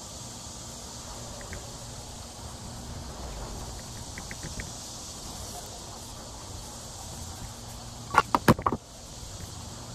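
Steady high-pitched insect drone, like summer crickets or cicadas. A few faint ticks come early on, and a quick run of four or five sharp knocks about eight seconds in is the loudest sound.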